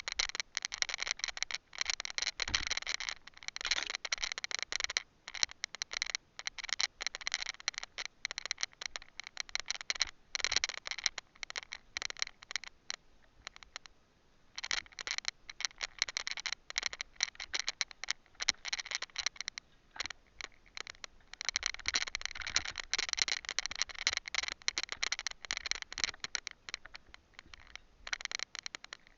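A loose camera rattling in its mount: rapid, irregular clicking and clattering. It stops for about a second and a half about halfway through, then starts again.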